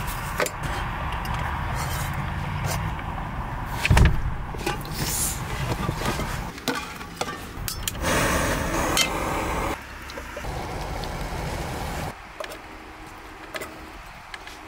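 Cooking sounds in a small camper: knocks and clicks of pans and gear being handled, with one sharp knock about four seconds in. A small gas canister stove's burner hisses for a couple of seconds after it is lit, and near the end a spatula scrapes food from a frying pan into a bowl.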